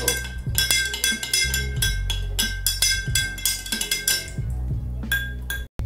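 Metal spoon clinking repeatedly against the inside of a glass jar, several ringing clinks a second, as it stirs honey and chocolate into bourbon to dissolve the honey.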